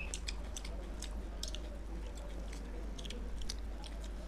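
People chewing a meal of rice, dal and fish curry eaten by hand, close to the microphone: irregular wet mouth clicks and smacks, over a steady low hum.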